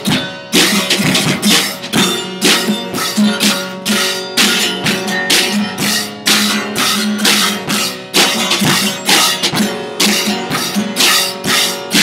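Drum kit played in a steady beat, cymbal and drum hits, together with strummed guitar: an instrumental stretch of a rock cover.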